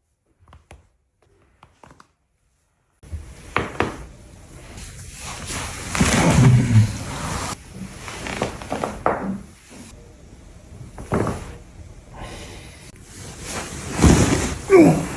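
Chiropractic adjustment starting about three seconds in: a series of sharp cracks and thuds as the joints are manipulated, with a couple of short voiced grunts from the patient.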